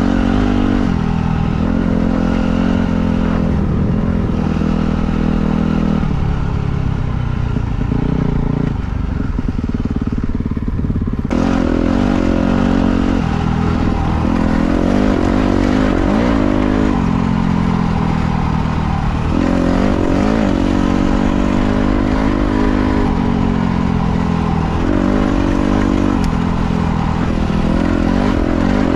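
Dirt bike engine running hard as it is ridden, its pitch repeatedly rising and falling with the throttle and gear changes. From about eleven seconds in, the sound turns noisier and hissier.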